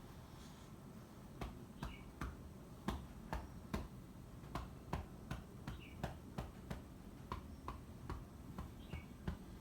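Hand patting repeatedly on a patient's back in chest-physiotherapy percussion, a short sharp pat about every half second, starting about a second and a half in. The tapping is done to loosen mucus in the lungs so it can be coughed up.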